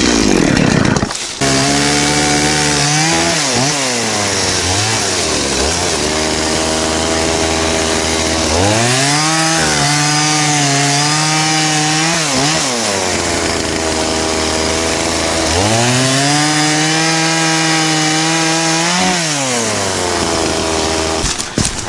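Two-stroke chainsaw cutting into a dry dead log. The engine runs at a lower pitch, then is revved up and held high twice, from about 8 s in and again from about 16 s in, dropping back between the cuts.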